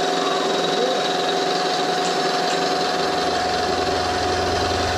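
Bridgeport EZ Trax CNC knee mill running a 3/4-inch four-flute high-speed-steel end mill as it circles and cuts the combustion chamber of an aluminum VW cylinder head, a steady machining sound with several held tones. A low hum joins about three seconds in.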